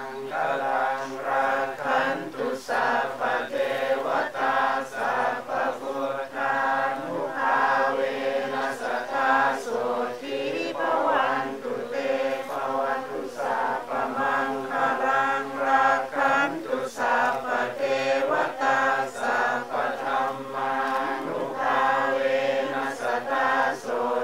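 Group of Theravada Buddhist monks chanting together in Pali, a steady, continuous recitation in unison.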